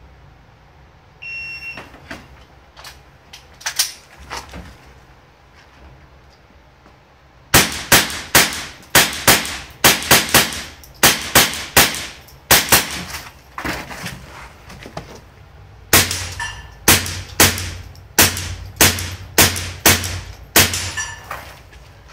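A shot timer's start beep about a second in, then, several seconds later, a fast string of about two dozen .22 rimfire rifle shots, two to three a second, with a pause of a second or so about two-thirds of the way through.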